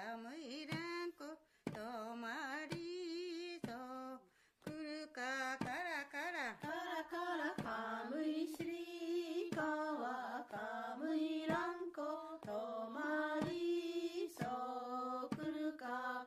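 A voice singing a chant-like melody, holding notes with a strong wavering vibrato and breaking off between phrases, with frequent sharp clicks like those of an old film soundtrack.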